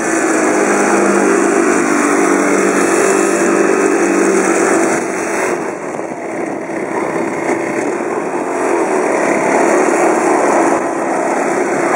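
Small Honda GX31 four-stroke petrol engine of a 1:6 scale Stuart tank model running steadily under way, easing off briefly about halfway through and then picking up again.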